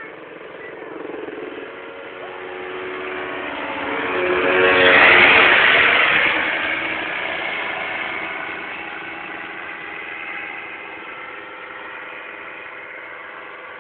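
Paramotor's Solo 210 two-stroke engine and propeller flying past at full throttle. It grows louder to a peak about five seconds in, drops in pitch as it passes, then fades away.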